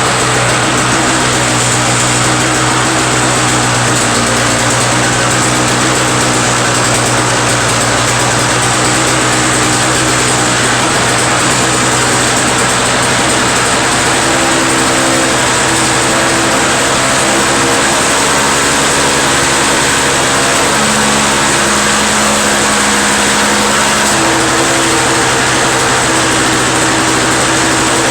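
Toro snow blower's two-stroke engine running steadily, its pitch shifting a few times. The engine is now running after a new spark plug, fresh 50:1 fuel mix and a cleaned-out carburetor jet.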